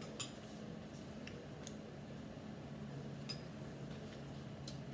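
A few faint, scattered clinks of a metal spoon against a bowl, over a low steady hum.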